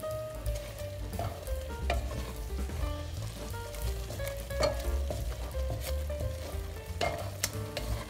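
Ground beef sizzling as it fries in oil in a pot, stirred with a wooden spoon that scrapes and knocks against the pot many times. The liquid is nearly cooked off, leaving mostly oil.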